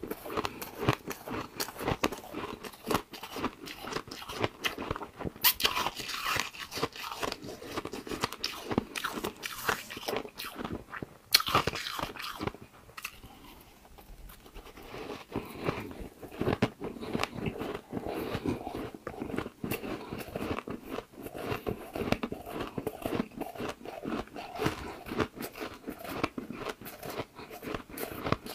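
Crushed white ice being bitten and chewed, a dense run of crisp crunches and crackles with a few louder bursts and a quieter stretch about halfway through.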